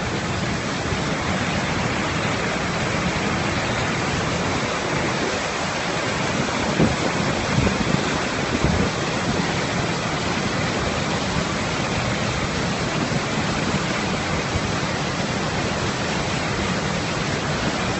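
Storm floodwater rushing in a torrent, a steady loud roar of water, with a few short louder knocks in the middle.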